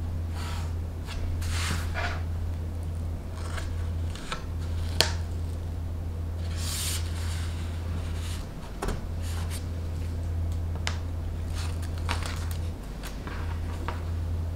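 Embroidery fabric rustling and rubbing as it is smoothed, stretched and folded around a thin wooden board, in intermittent swishes with a few light taps and clicks, the sharpest about five seconds in.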